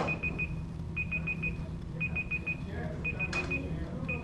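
Electronic timer alarm beeping, one high tone in quick groups of four, the group repeating about once a second. A sharp knock sounds at the start and another about three seconds in.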